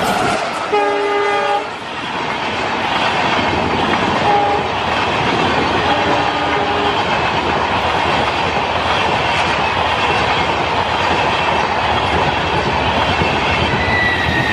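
Passenger train passing at speed: the locomotive horn sounds about a second in and twice more briefly around four and six seconds, over the steady rush and clickety-clack of the coaches going by.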